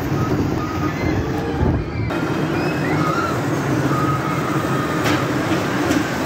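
Small caterpillar kiddie roller coaster train running on its steel track, its wheels making a steady low rumble as the cars pass close by.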